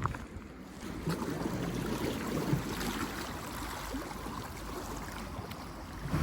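Sea water washing and lapping in a steady, uneven wash, with a short click right at the start.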